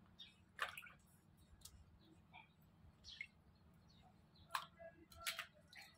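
Faint splashing and clicking of live crabs being handled in a plastic basin of water: a few short sharp clicks and splashes, the loudest about half a second in and twice near the end.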